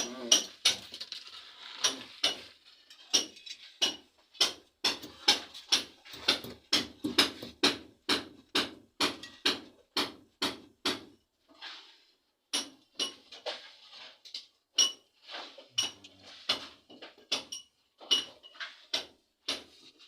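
Repeated hammer blows, about two a second, with a metallic ring on each strike and a short pause about twelve seconds in.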